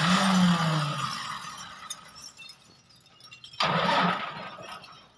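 Massey Ferguson 285 tractor's diesel engine pulling hard under load, twice: each surge comes in suddenly and then fades, the first with a low engine note that sags slightly in pitch.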